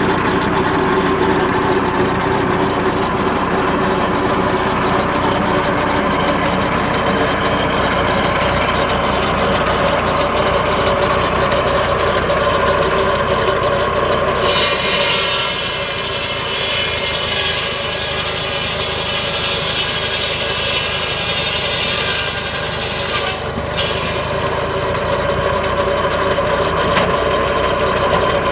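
International Harvester Farmall 140 tractor running steadily, driving a PTO buzz saw whose big circular blade spins with a steady whine. About halfway through, the blade bites into a log and cuts with a loud, high-pitched rasp for about nine seconds, then the engine and free-spinning blade run on.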